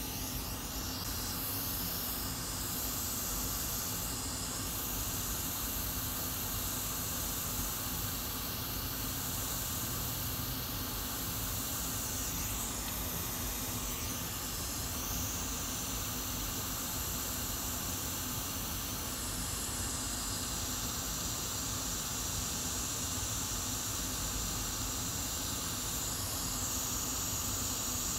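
Hot air rework station blowing a steady hiss of hot air over flux-covered RAM chips to reflow their solder; the tone of the hiss shifts a few times.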